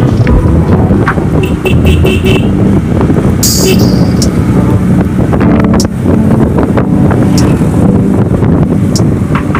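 Motorcycle engine running while riding, mixed with wind buffeting the camera microphone, loud and steady throughout.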